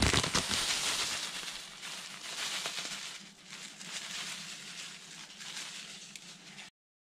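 Panko breadcrumbs pouring out of a plastic bag into a bowl, a steady rustling with the bag crinkling, loudest in the first second. The sound cuts off suddenly near the end.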